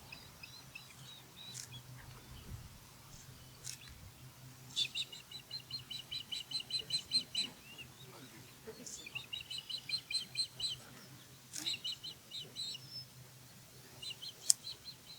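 Osprey calling: bouts of rapid, evenly repeated high chirps, three longer runs of a few seconds each and a short one near the end.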